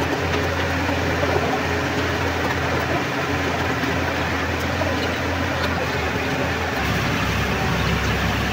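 A heavy engine running steadily, with a constant hiss over its hum; its low hum shifts to a deeper note about seven seconds in.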